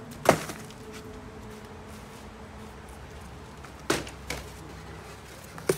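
Four short, sharp knocks: a loud one a fraction of a second in, then three smaller ones near the end, over steady low background noise.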